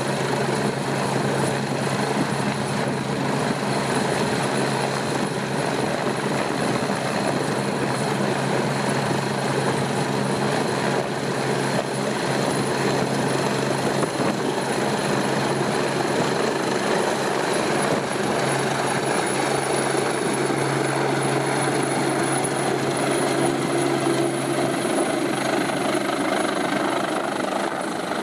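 Rescue helicopter hovering and hoisting a rescuer on its winch cable: steady rotor and turbine noise with a low steady hum, which drops away near the end.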